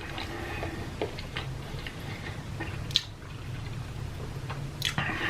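Quiet, close-miked eating sounds: soft chewing and wet mouth clicks, with one sharper click about three seconds in.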